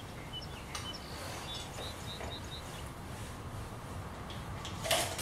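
Outdoor ambience: a steady background hiss with small birds chirping briefly, a quick run of about five short high chirps partway through. A single short, louder noise comes near the end.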